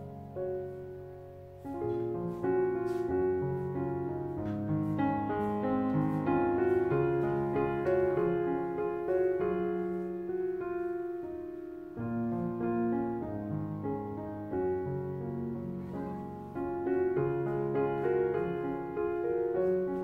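Gentle background piano music, notes played one after another in a slow flowing melody.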